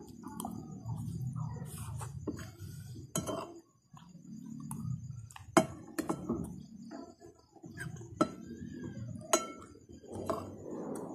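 A metal spoon clinks and scrapes against a ceramic plate of rice, with about six sharp clinks spread out. Soft chewing can be heard between them.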